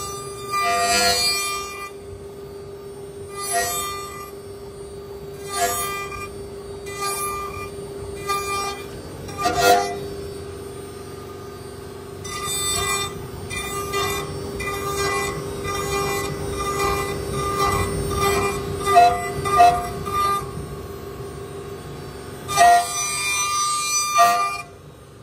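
CNC router spindle running with a steady tone while its end mill carves a block of pine, with louder bursts of cutting noise every second or two as the bit bites into the wood.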